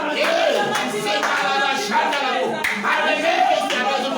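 A congregation praying aloud all at once, many voices overlapping, with hand clapping among them.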